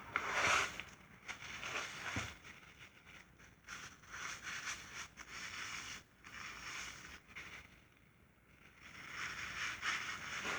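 Faint scraping and rustling handling noises, with a brief louder scrape about half a second in.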